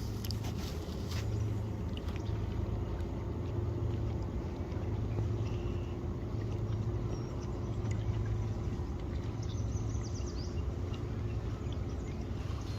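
Small motor pushing a canoe along, running at a steady low hum.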